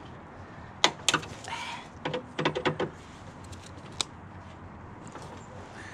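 Hand snips working at a failed rivet on a car's steel bonnet catch: sharp metal clicks and snaps about a second in, a short scrape, a quick run of clicks a little later and one more click near four seconds.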